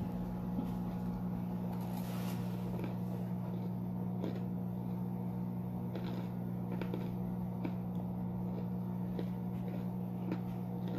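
A steady low hum with faint chewing and small mouth clicks from eating tater tots and a cheeseburger.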